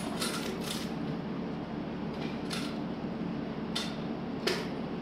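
A handful of short metal clicks and scrapes from a small hand tool tightening the screw on a throttle-block clamp on a snowmobile handlebar, over a steady background hum.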